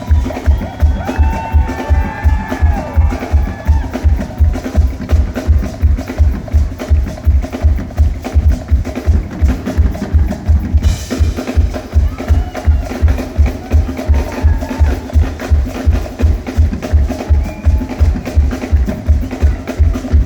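Live band playing upbeat dance music, with a loud kick drum beating steadily about twice a second under percussion and melodic lines.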